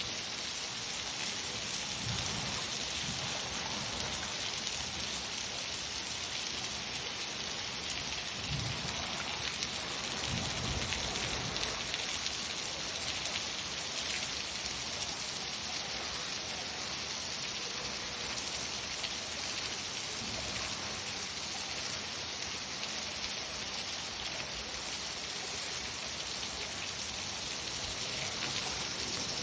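Steady rain falling, with a few brief low rumbles in the first half.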